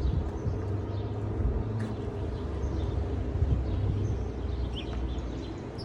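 Outdoor ambience: an uneven low rumble with a few faint, short bird chirps.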